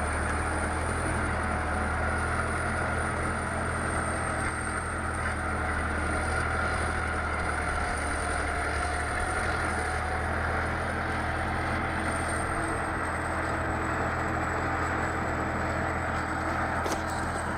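A heavy vehicle's engine running steadily, a low drone with a thin high whine above it. There are a couple of clicks near the end.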